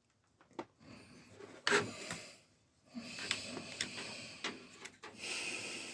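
Handling noise: scattered clicks and rustling as parts and cables are moved and connected by hand, with one sharper click a little under two seconds in.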